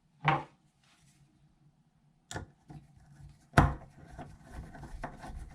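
Handling sounds from refitting a Delta faucet handle and driving its Phillips screw with a screwdriver: a sharp click, a louder knock about three and a half seconds in, then a run of light scraping ticks as the screw turns.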